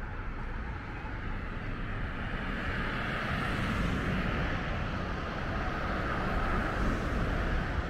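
Road traffic: a passing vehicle's engine and tyre noise swells from about three seconds in and eases near the end, over a steady low rumble.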